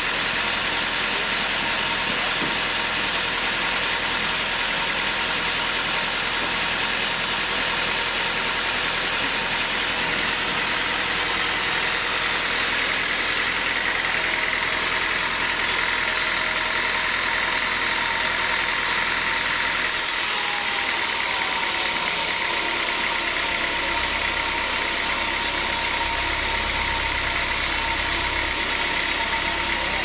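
Large band sawmill running as its band blade cuts lengthwise through a big log: steady machine noise with a faint steady whine. The low hum grows heavier about two-thirds of the way through.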